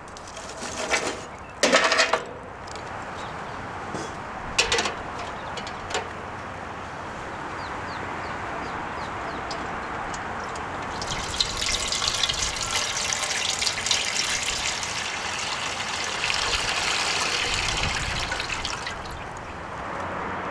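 Metal tongs clacking and a log knocking onto charcoal in a steel grill: a few sharp knocks in the first six seconds. Then water poured in two streams from dallah coffee pots into a metal cooking pot, a steady splashing pour lasting about eight seconds.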